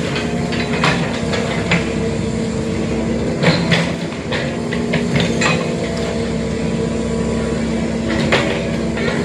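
Excavator's diesel engine running steadily, with metallic clanks and knocks from the bucket and arm at irregular moments, a few of them close together between three and four seconds in.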